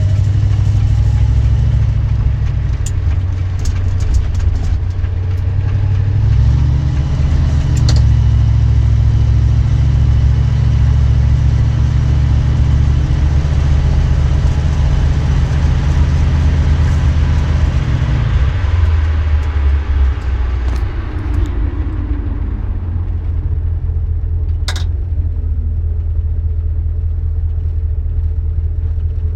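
1973 Dodge Dart's 318 V8 and 904 three-speed automatic running under way, a heavy steady rumble that drops to a lower, quieter drone about two-thirds of the way through, with a sharp click near the end. This is the transmission the owner describes as making a strange ticking noise and seeming to use only two of its gears.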